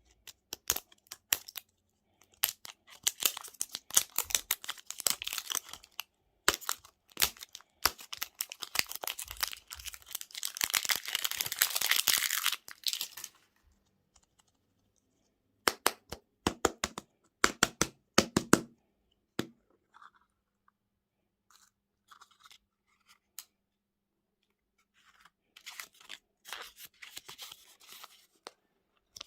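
Close-miked eating of sweets: crisp crunching bites and chewing in clusters separated by quiet gaps, with a dense stretch of crackling around the middle.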